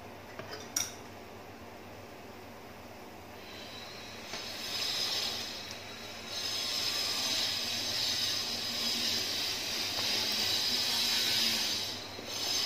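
Shredded crab sticks sizzling in oil in a wok, in oil the cook says is bubbling but not yet fully hot. The sizzle grows louder about four seconds in, as more shreds go into the oil. A sharp click comes about a second in.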